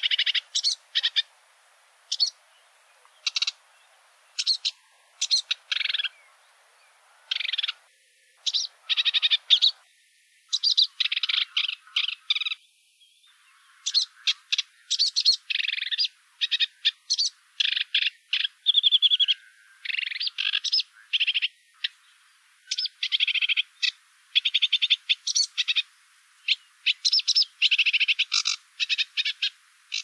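Sedge warbler singing: fast, scratchy phrases of chattering notes and rapid trills, separated by short pauses and coming almost without a break in the second half.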